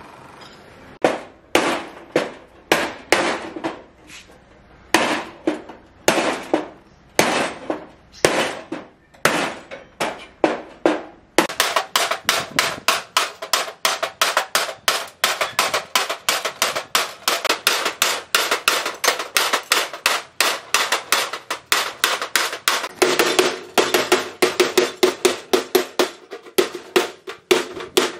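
Hand hammer striking a rusted steel car door, metal ringing with each blow. The blows come about two a second at first, then from about a third of the way in a rapid, steady run of about four a second.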